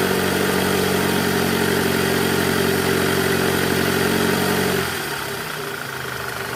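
Toyota Camry 2AZ-FE four-cylinder engine running in gear (reverse) at around 1200 rpm, with a growl from the drive-belt tensioner, whose spring is weak. About five seconds in the engine note drops and turns quieter.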